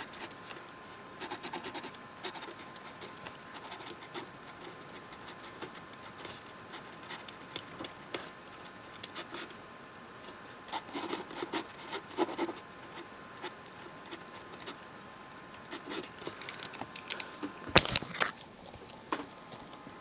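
Scratchy strokes of handwriting on lined spiral-notebook paper, with small taps and rubs. Near the end comes a louder rustle and crackle as the paper sheet is handled.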